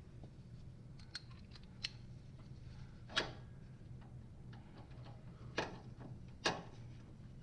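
Hand tools on the bolts of a steel loader mounting bracket under a garden tractor: a socket ratchet and wrench clacking against the bolt and bracket as a bolt is fitted and tightened. It comes as a few sharp metal clacks a second or more apart, loudest about three, five and a half and six and a half seconds in, with faint ticking between them.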